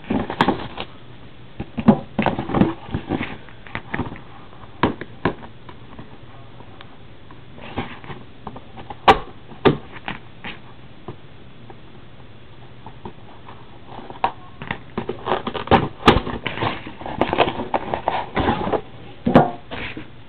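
Hands handling a cardboard trading-card box that is being cut open: scattered rustling, scraping and sharp clicks, busiest near the start and again in the last few seconds, with quieter stretches between.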